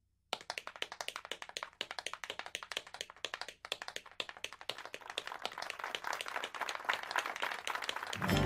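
Tap shoes clattering in a rapid tap-dance routine, a quick run of sharp clicks with a brief break about three and a half seconds in, growing faster and louder toward the end.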